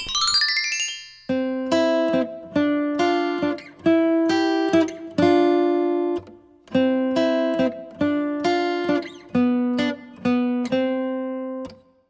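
Background music on a plucked string instrument: a quick rising run of notes at the start, then a slow melody of single plucked notes, each ringing and fading, stopping just before the end.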